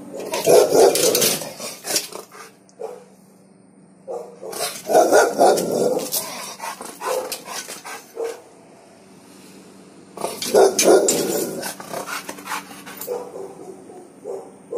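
A Rottweiler barking up at a cat, in three loud bouts of several barks each with a few single calls between.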